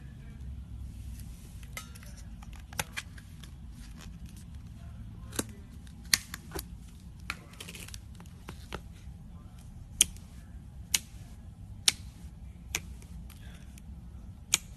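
Slime being handled, giving sharp popping clicks of air bubbles at irregular intervals, about one a second, over a steady low hum.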